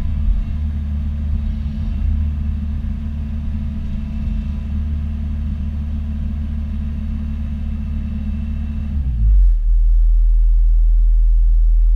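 Bobcat E42 mini excavator's diesel engine running steadily with a low drone. About nine seconds in the sound changes abruptly to a louder, very even low hum.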